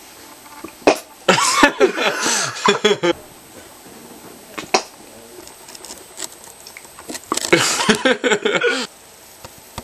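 A man's wordless vocal noises in two bursts, each about one and a half to two seconds long, with a couple of sharp clicks between them.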